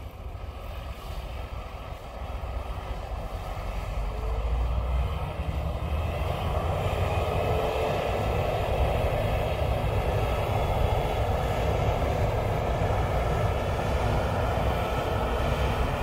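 New Holland combine harvester running as it works canola swaths: a steady engine and machinery drone that grows louder over the first several seconds as the combine comes closer, then holds.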